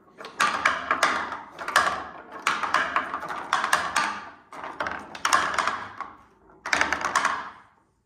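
Wooden balls rolling down the wooden ramps of a ball-and-ramp toy, clattering and knocking as each one rolls off a ramp and drops onto the next. The knocks come in quick clusters with short pauses between them.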